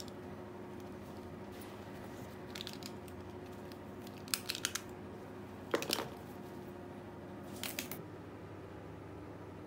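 Items being packed into a fabric backpack: a notebook and pens going into the bag, heard as a few short rustles and clicks, the loudest about six seconds in. A faint steady hum runs underneath.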